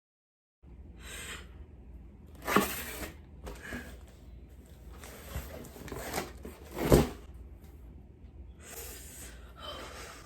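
Gasping, sniffling breaths of someone upset and close to tears, among handling noise, with two louder knocks about two and a half and seven seconds in.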